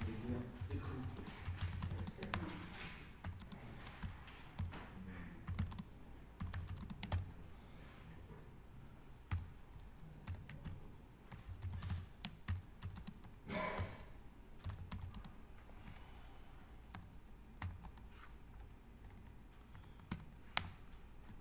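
Typing on a computer keyboard: irregular runs of key clicks with short pauses between words, and one brief louder noise about two-thirds of the way through.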